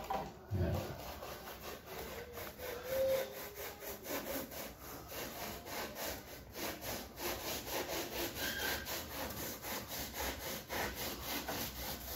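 Hand saw cutting through wood with quick, regular back-and-forth strokes, trimming off excess.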